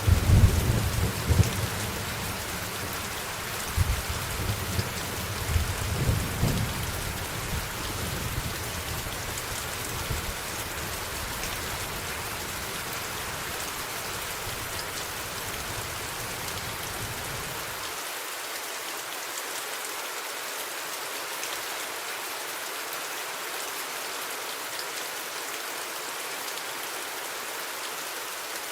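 Steady rain with rolling thunder: loud rumbles right at the start and again a few seconds later, fading away. About two-thirds of the way through the low rumble cuts off suddenly, leaving only the even hiss of rain.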